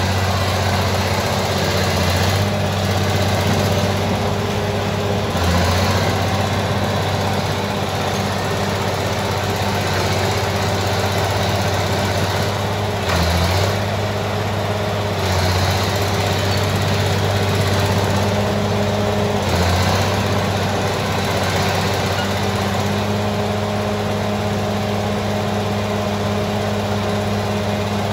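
Crawler bulldozer's diesel engine running steadily as the machine works, its note shifting briefly a few times.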